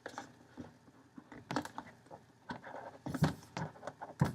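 Hands opening a new iPad's retail packaging: scattered light taps, clicks and brief rustles of the box and its wrapping.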